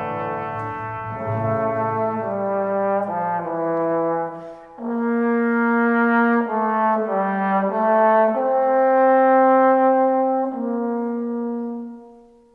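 Background music of slow, held brass chords, the notes changing every second or so over a stepping bass line, fading out near the end.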